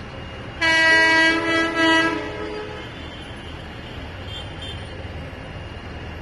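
Train horn blowing one long blast of about a second and a half, starting about half a second in, followed by the steady low rumble of rail traffic.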